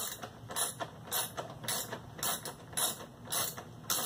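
Socket ratchet wrench clicking as a bolt is worked loose, in short runs of clicks about twice a second as the handle is swung back and forth.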